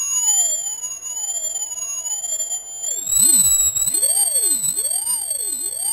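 Piezo tweeter of a homemade ultrasonic dog-bark deterrent, driven by its sound generator: a piercing high whistle with fainter electronic tones warbling up and down over and over. The pattern shifts and the whistle climbs slightly about halfway through.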